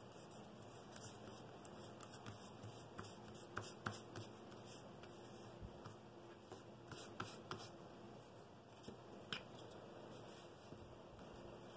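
Faint rustling and rubbing of a paper pattern handled and smoothed flat by hand on a board, with scattered light clicks and taps.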